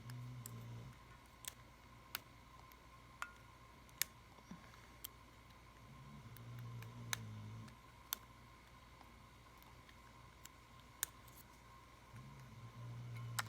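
Lock pick working the pin tumblers of a padlock being picked: faint, sharp metal clicks, about a dozen at uneven intervals.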